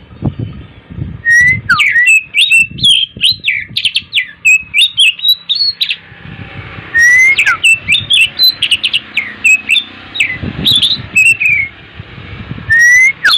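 Oriental magpie-robin (kacer) singing a fast, varied song of whistled glides and sharp chattering notes, in long bursts broken by short pauses.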